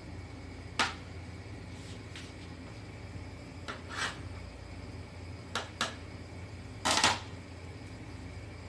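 A pot of water heats on a gas stove with a steady low hum, broken by a few sharp clicks. The loudest is a short clatter about seven seconds in.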